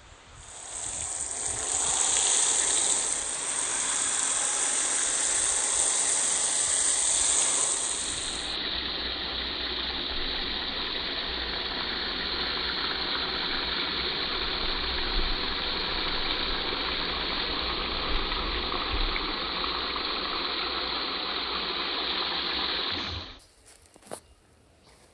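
Water from a garden hose spray nozzle running into a plastic bucket of laundry: a steady hiss and splash that turns duller about eight seconds in and cuts off suddenly near the end.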